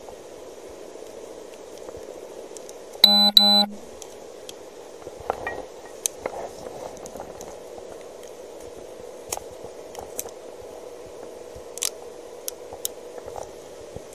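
Two short electronic beeps in quick succession about three seconds in, loud and buzzy, over a steady background hum. Faint scattered clicks and light knocks follow.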